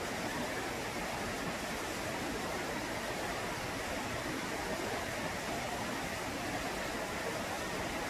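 Steady rush of running stream water, an even hiss with no breaks or changes.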